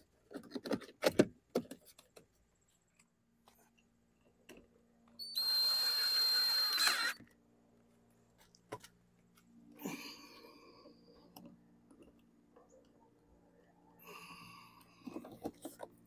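Plastic clicks as the door-handle bezel is pressed into the door panel, then about five seconds in a cordless drill drives a Torx screw home in one short run of under two seconds, followed by faint handling noises.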